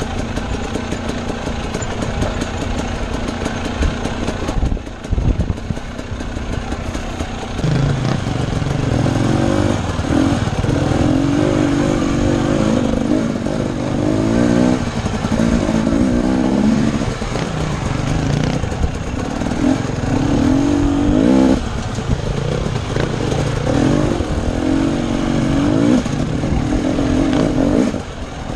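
Husqvarna TE250 dirt bike engine under way over rocky ground. It runs fairly steadily at first, then from about eight seconds in the revs climb and fall again and again as the throttle is worked.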